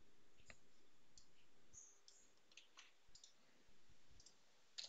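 Faint, scattered clicks of a computer mouse.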